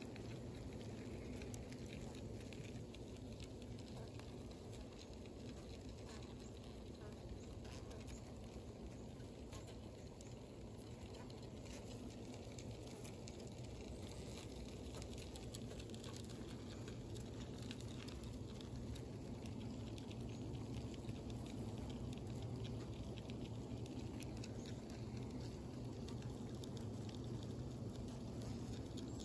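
A cluster of honey bees in an opened hive humming steadily, with many tiny scattered ticks over the hum.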